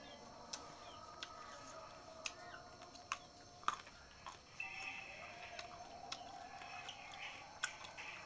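Close-up eating sounds of salak (snake fruit): sharp, crisp clicks about once a second from biting and handling the crunchy fruit. Behind them runs a faint steady tone that breaks off around the middle and comes back slightly higher.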